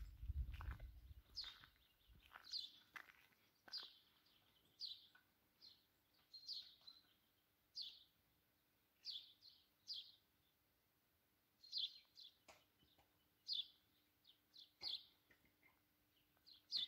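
A small songbird chirping: short, high chirps about once a second, some in quick pairs or threes, over a very quiet background. A brief low rumble in the first second.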